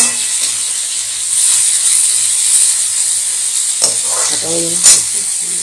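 Chopped onion, tomato, peas and peanuts sizzling steadily in a metal kadhai while a metal spatula scrapes and clicks against the pan as they are stirred, with one sharp clink of spatula on pan about five seconds in.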